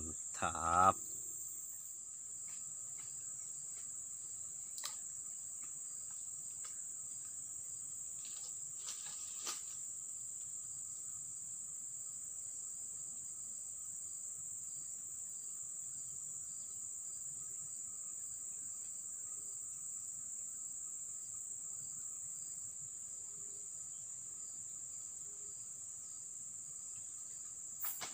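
Steady, high-pitched chorus of insects, unbroken throughout, with a couple of faint clicks.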